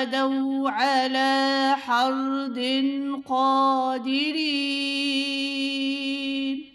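A single voice reciting the Quran in melodic tajweed chant, drawing out long, steady held notes with a brief break about three seconds in.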